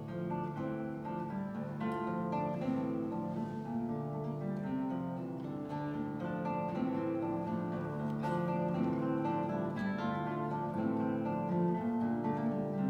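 Two classical guitars playing a duet: a steady flow of plucked notes over lower sustained bass notes.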